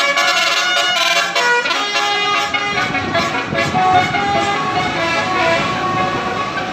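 Basuri 'telolet' musical air horns on buses, several of them playing tooting melodies of changing notes over one another. From about halfway through, a low rumble of engines and traffic rises beneath them.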